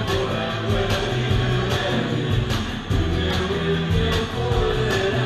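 Live rock band playing loudly through a PA: electric guitars, bass and drums with a steady drum beat.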